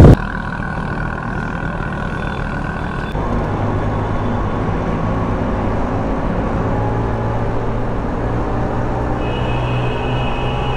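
LML Vespa NV scooter's two-stroke engine running steadily at cruising speed, heard from the saddle. About three seconds in it turns slightly louder as the scooter rides through a road tunnel.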